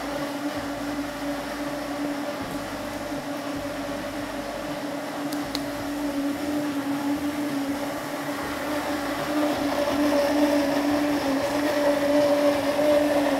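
Countertop blender motor running at speed 6, blending granadilla pulp in a steady hum that holds one pitch, then winding down right at the end as the 15-second run stops.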